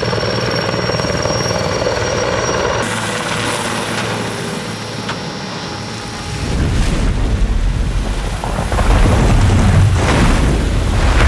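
Helicopter rotors and turbine engines running, with a steady high whine in the first few seconds. The rotor beat grows heavier and louder from about six seconds in.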